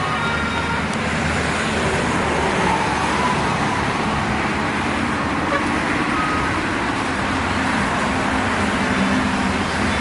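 Steady road traffic: vehicles passing with a low engine drone under a dense rush of tyre and road noise.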